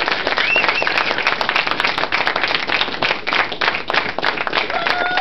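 A crowd applauding, many hands clapping densely, with a brief cheer about half a second in.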